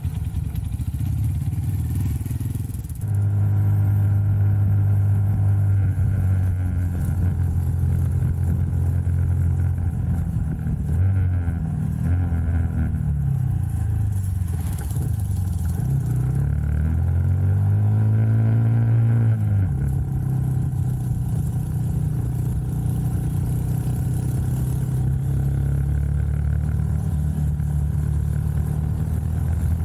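Motorcycles idling for about three seconds, then a Honda Super Cub C125's small single-cylinder engine running under way, heard from a camera on the bike, with wind and road noise. Its pitch holds steady, rises and falls between about ten and twenty seconds in as speed changes, then settles again.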